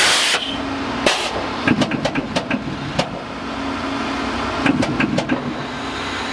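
Pneumatic internal pipeline welding clamp being cycled: short bursts of air hiss near the start and about a second in, then a run of sharp clicks and clunks, over a steady machine hum.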